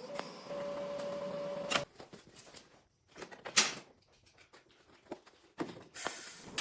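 Short bursts of MIG welding on car body steel: a hissing, crackling burst with a steady hum lasting nearly two seconds, then scattered ticks and a much shorter burst about halfway through.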